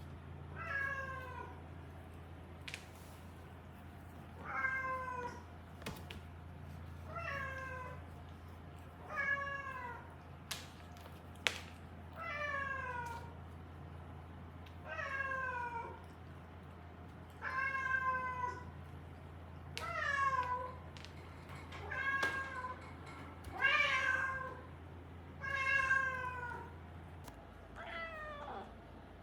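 A cat meowing repeatedly, about one call every two seconds, each call falling in pitch. A steady low hum lies underneath and stops near the end.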